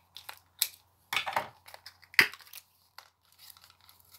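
Crinkling and crackling of a sweet packet being handled, in a few irregular bursts, the loudest about a second in and again just after two seconds.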